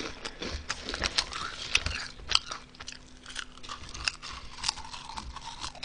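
Honey Butter Chip potato chips being bitten and chewed with the mouth close to the microphone: a run of irregular crisp crunches.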